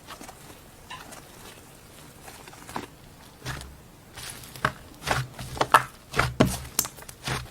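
Crunchy slime being squeezed and crushed by hand, giving off irregular crackles and pops, sparse at first and coming thick and fast in the second half.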